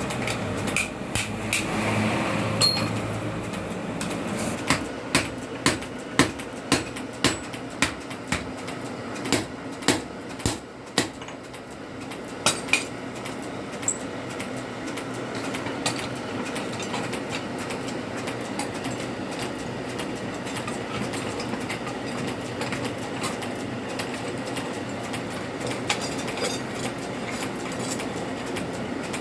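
Blacksmith's hammer striking steel on an anvil while forging a blade: a run of about fifteen sharp metallic strikes, roughly one every second or less, then the strikes stop and a steady mechanical noise carries on.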